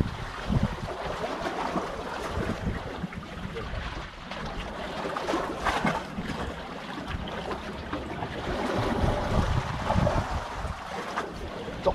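Wind gusting on the microphone over the wash of sea water, rising and falling unevenly.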